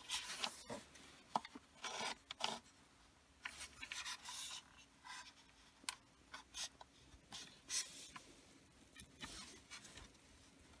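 Hard plastic trim parts rubbing and scraping against each other as a USB charger socket and its plastic holder are handled and lined up. It comes in irregular short bursts of scratchy rubbing, with a few small clicks.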